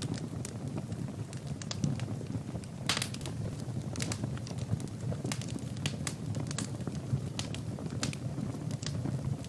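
Wood fire burning in a fireplace: a steady low rumble of the flames with irregular sharp crackles and pops, a louder pop about three seconds in.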